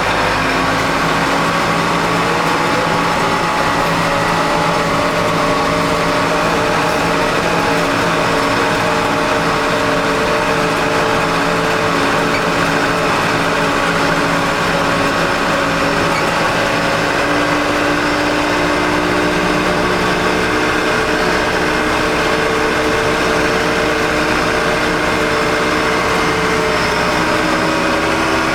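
Backhoe loader's diesel engine running steadily while pushing snow with a pusher box, its engine speed shifting slightly a couple of times.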